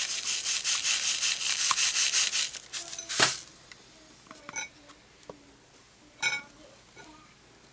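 Epsom salt crystals shaken out of a plastic container onto a metal spoon: a rhythmic rattling hiss, about six shakes a second, that stops after about two and a half seconds. A sharp knock follows about three seconds in, then a few faint clicks.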